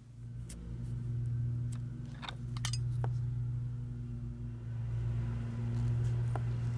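A steady low hum with a handful of short, sharp clicks and scrapes as a single-edge razor blade cuts through an old I.F. transformer coil former tube.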